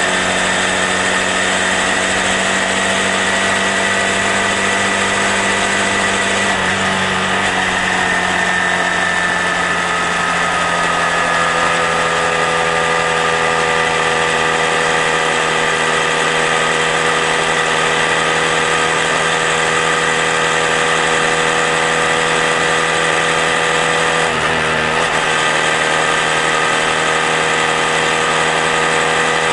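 Honda Grom's small single-cylinder four-stroke engine running steadily while riding. Its pitch eases down a little about ten seconds in and then holds steady.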